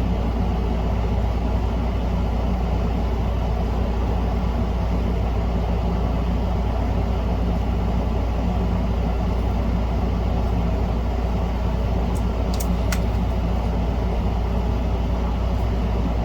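Steady, loud low hum, like a fan or motor running, with a couple of faint clicks about twelve to thirteen seconds in.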